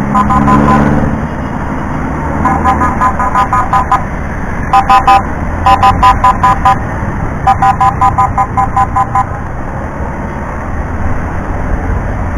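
Honda Click 150 scooter horn tooted in quick runs of short beeps, about four runs in the middle of the stretch, over steady road and engine noise while riding.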